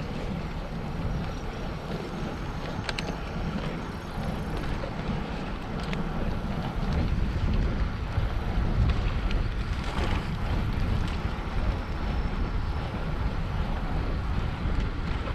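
Wind rumbling on the microphone of a camera on a moving bicycle, a steady low buffeting that grows louder about halfway through.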